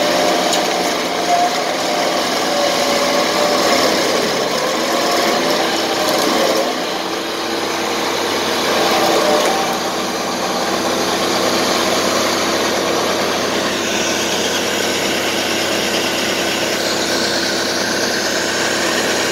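Vermeer stump grinder's engine running while its cutter wheel grinds wood out of a stump. The engine note wavers for the first several seconds, then holds steady.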